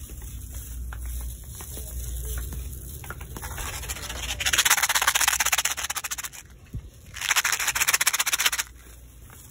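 Close rustling and crinkling handling noise right at the phone's microphone, in two bursts of about two seconds and one and a half seconds, over a low rumble of store background.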